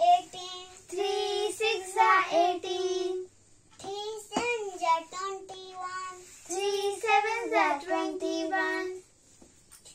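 Children's voices chanting the multiplication table of 3 in a sing-song recitation, each line repeated; the chanting stops about nine seconds in.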